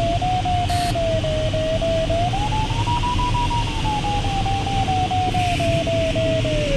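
Sailplane variometer's audio tone sounding continuously and sliding slowly up and down in pitch as the glider's rate of climb or sink changes. Underneath is the steady rush of air around the cockpit.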